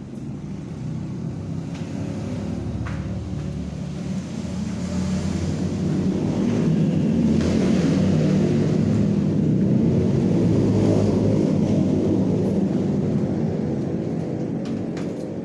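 Loud low rumble, like a heavy engine, that swells to its loudest in the middle and fades near the end.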